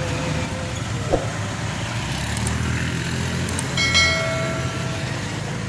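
A truck engine running with a steady low rumble as it drives along the road. A sharp click comes about a second in, and a short bell-like chime of several steady tones about four seconds in, as the subscribe-button animation plays.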